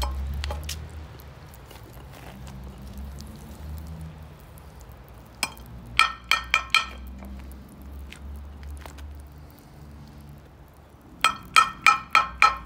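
Metal spoon knocking skimmed dross off against a metal frying pan: a single clink, then four quick ringing clinks about six seconds in, and a faster run of about five more near the end.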